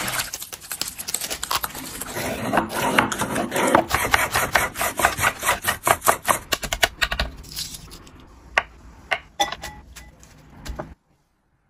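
Lettuce leaves rubbed and swished by hand in a bowl of water, then a knife chopping greens in quick strokes on a wooden cutting board. Near the end a few light taps and rustles as cut greens drop into a glass bowl, cutting off suddenly shortly before the end.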